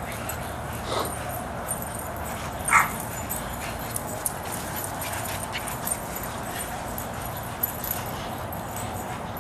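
Pit bulls playing at a rope, with a short bark about a second in and a louder one about three seconds in, over a steady background hiss.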